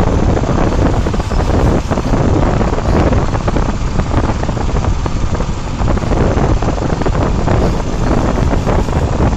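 Heavy wind buffeting the microphone: a loud, steady low rumble.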